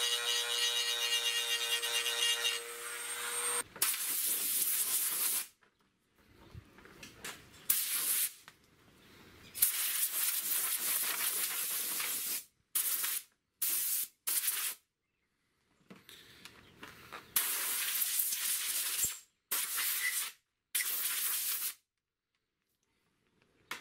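Handheld rotary tool (Dremel) whining at a steady pitch as it grinds the moulded logo off a plastic toy blaster, cutting off after about three and a half seconds. Then come short bursts of scratchy rubbing and hissing, with silent gaps between them.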